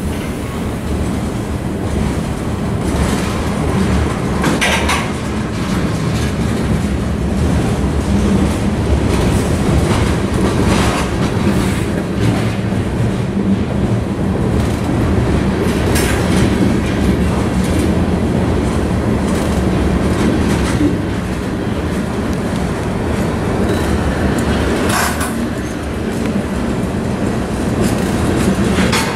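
Freight train of covered hopper cars rolling past at close range: a steady rumble and clickety-clack of steel wheels over the rail, with a few brief sharp metallic noises spaced through it.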